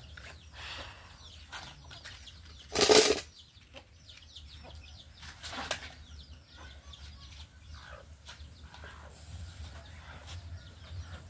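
Chickens around the yard: a short loud flutter of wings about three seconds in, a smaller one near six seconds, and faint high chirping throughout.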